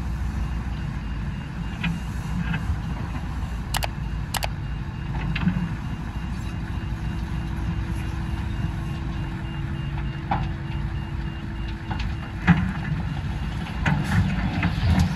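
Heavy diesel machinery running steadily: the Hitachi ZX210 excavator and the Mercedes-Benz SK 2644 dump truck, with a reversing alarm beeping over the engine rumble. Two sharp knocks sound about four seconds in.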